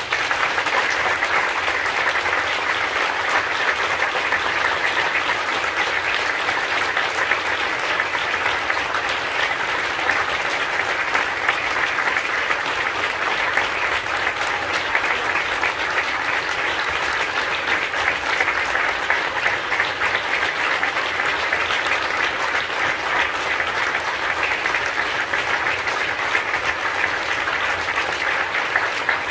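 Audience applauding in a theatre hall. The clapping breaks out all at once and keeps on at a steady level.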